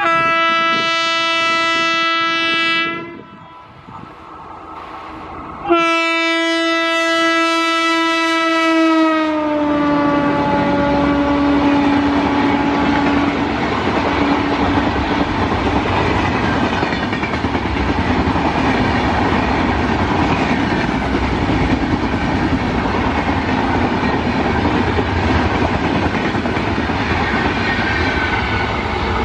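WAP-5 electric locomotive's horn sounding two long blasts. The second blast falls in pitch as the locomotive passes at speed. Then comes the steady rush of the passenger coaches running past on the rails.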